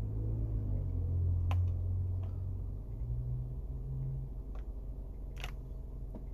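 Clicks of the push buttons on a 2004 Toyota Corolla's factory radio, pressed about five times at uneven intervals while the anti-theft security code is keyed in, over a steady low hum.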